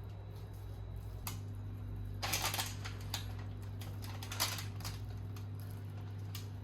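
Scattered light clicks and taps, bunched about two seconds in and again about four and a half seconds in, over a steady low hum.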